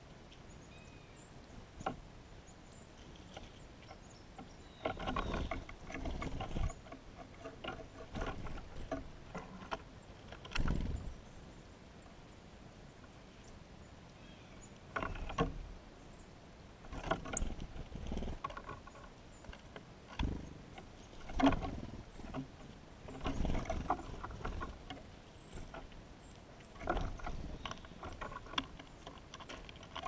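Birds at a window seed feeder: irregular bouts of scuffling and tapping, each a second or two long, several times over.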